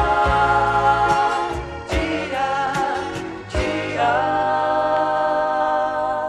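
Gospel song from a vinyl LP: voices hold two long sung notes over a band with drums, guitars and keyboard, with a drum hit between the notes.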